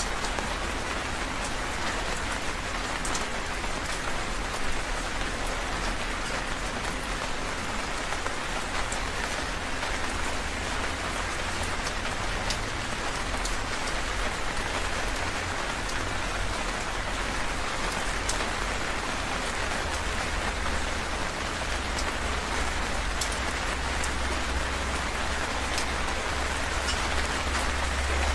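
Heavy rain falling steadily, a dense even hiss with scattered sharp drop ticks and a low rumble underneath that swells in the last third.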